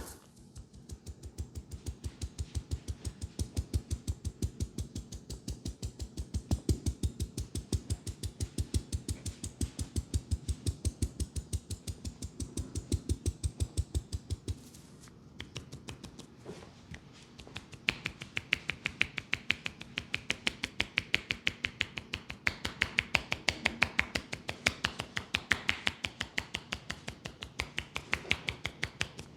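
Percussive massage by hand: rapid, rhythmic tapping and chopping strokes in quick runs. The strokes are dull thuds for the first half, ease off briefly about halfway, and from about two-thirds of the way in become sharper, crisper slaps and claps.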